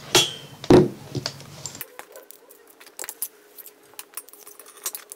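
Disassembled pistol parts being handled on a table: a loud knock about three-quarters of a second in, then a run of light metallic clicks and taps.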